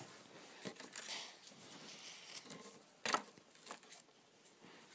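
LEGO plastic being handled: a minifigure and bricks knocked and set down, with a faint click early, one sharp plastic click about three seconds in and a couple of light taps after it.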